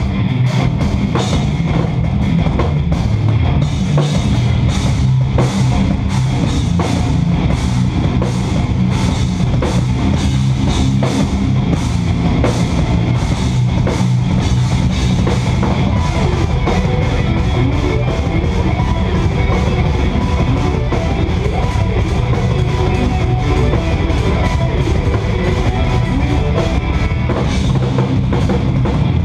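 Live instrumental progressive metal from a band of two eight-string electric guitars and a drum kit: heavy low guitar riffing under dense, rapid drum and cymbal hits.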